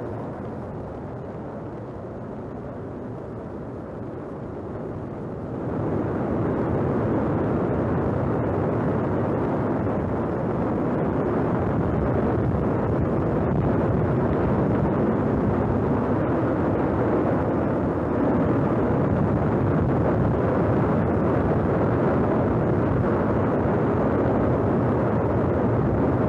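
Lava fountain erupting: a steady, dense rushing noise, low and full, that grows louder about five and a half seconds in.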